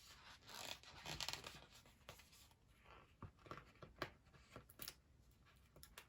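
Faint paper handling: a sticker peeled off a sticker sheet, with soft rustles and small taps and clicks.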